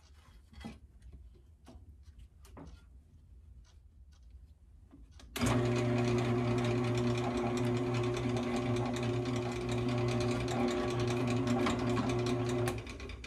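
A few light handling clicks, then a benchtop drill press starts about five seconds in. Its motor runs at low speed with a steady hum while a step drill bores out a hole in an aluminum engine plate. It stops shortly before the end.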